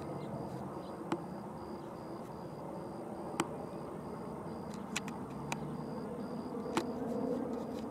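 Steady low rumble of distant road traffic, swelling a little near the end, with a few sharp clicks and a faint high pulsing tone over it.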